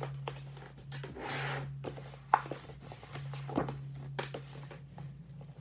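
Objects being handled and moved about: scattered light knocks and clicks, a brief rustle, and one sharper knock about two seconds in, over a steady low hum.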